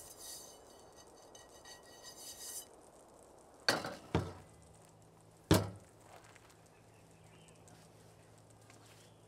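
Metal cookware being handled at a camp stove: a frying pan rubbed and rattled, then three sharp clanks in the middle as cookware is set down, the last the loudest.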